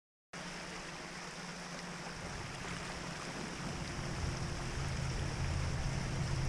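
Water rushing and splashing past an inflatable boat's hull as it runs at about 8 mph, wide open, on a Torqeedo 1103C electric outboard, with a low steady hum underneath. It starts a moment in and grows slowly louder.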